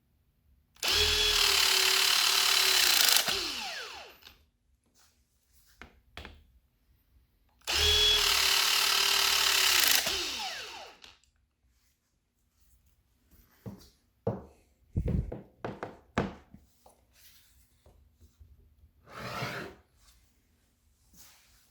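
A Milwaukee M18 cordless hydraulic tool's motor runs two cycles of about two and a half seconds each, roughly seven seconds apart. Each is a steady whine that winds down as the motor stops. Handling clicks and knocks follow.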